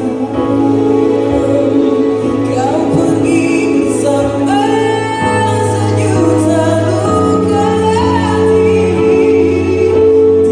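A singer performing a slow song live with electric keyboard accompaniment: long held sung notes and melodic phrases over sustained low keyboard chords.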